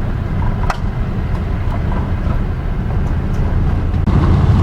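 A truck's engine and road noise heard from inside the cab while driving: a steady low rumble that grows a little louder near the end, with a single sharp click just under a second in.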